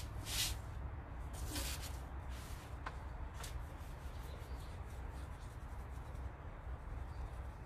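Paintbrush rubbing fabric paint into denim, with a few short scratchy strokes in the first three or four seconds and fainter brushing after that, over a steady low hum.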